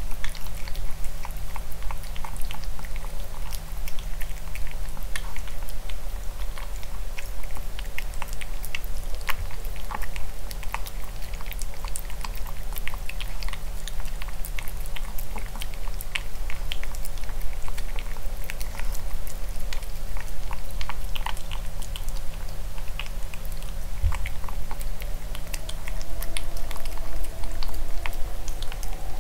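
Maltipoo puppy eating from a clear plastic bowl: close-up chewing with a quick, irregular run of small clicks and smacks, over a steady low hum.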